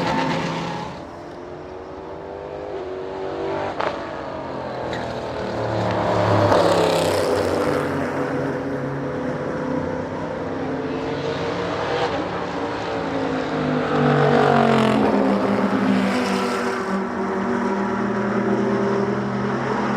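Several sports-prototype and GT race cars passing at speed during track practice, their engines at high revs, the pitch of each dropping as it goes by. The loudest passes come about a third of the way in and again past the middle, with one car's note overlapping the next.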